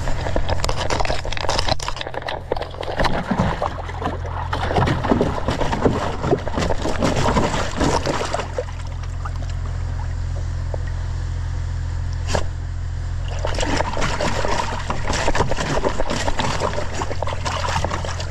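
A dog lapping and splashing water from a plastic tub, stopping for a few seconds in the middle before drinking again, over a steady low hum.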